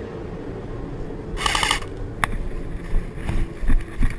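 Footsteps and rustling through leaf litter and undergrowth, with the body-worn camera jostling. A short buzzing burst about a second and a half in, a single click soon after, and heavier footfall thuds near the end.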